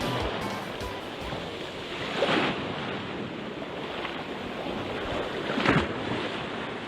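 Waves washing against the shore as a steady rush, with two louder surges about two seconds and five and a half seconds in.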